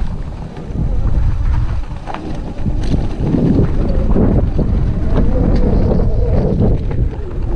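Wind rumbling on the microphone while a Super 73 electric bike is ridden at an obstacle, with a few short knocks and rattles from the bike.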